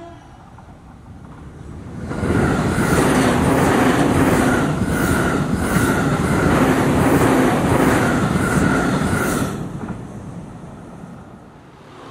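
JR East E531 series electric commuter train passing close at speed. The noise swells about two seconds in and holds loud for about seven seconds, with the wheels clattering in a regular beat about every three-quarters of a second, then fades away.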